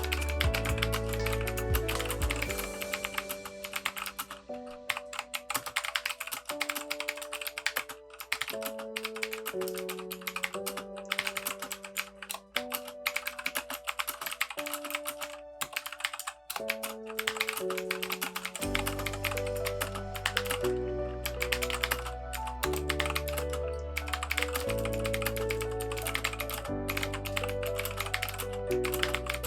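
Continuous fast typing on a Keychron K2 mechanical keyboard with unlubed Gateron switches, a dense run of key clicks, over background music whose bass drops out for a stretch and comes back about two-thirds of the way in.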